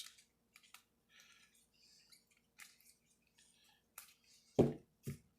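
Trading cards and their plastic sleeves being handled on a table: scattered soft rustles and small clicks, then two dull thumps near the end, the first the louder.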